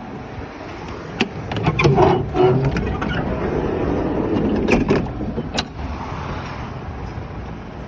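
Several sharp clicks and knocks over a steady rumbling background, bunched in the first five or six seconds.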